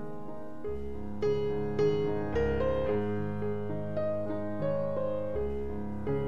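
Background piano music: a melody of single notes over held low notes, with no speech.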